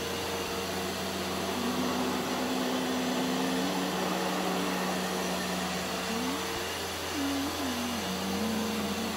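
Upright carpet shampooer running steadily while being pushed and pulled across carpet: a continuous motor hum with a hiss of air and suction.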